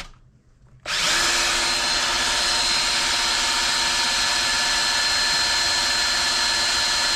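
Motor of a power wire-stripping tool starting about a second in and then running steadily with a constant whine, as scrap wire is fed through to strip off the insulation.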